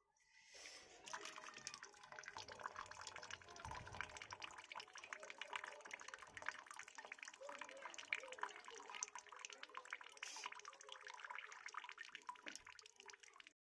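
Faint trickling and dripping of water, a dense crackle of small drops that starts about a second in and stops just before the end.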